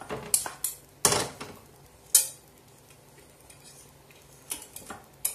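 Cast-iron stovetop toast maker being handled on the hob: a series of sharp metal clanks and knocks, the loudest about a second in and again near two seconds.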